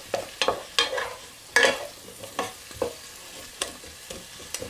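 A wooden spoon stirring diced potatoes, onion and garlic frying in butter and oil in a metal saucepan. Irregular scrapes and knocks of the spoon against the pan sit over a steady sizzle, and the strokes come more often in the first two seconds.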